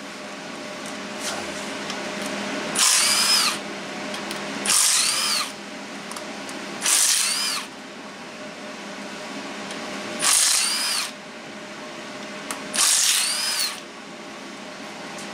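Cordless impact wrench spinning off the differential cover bolts of a GM 9.5-inch 14-bolt axle: five short bursts a couple of seconds apart, each with a whine that rises and falls.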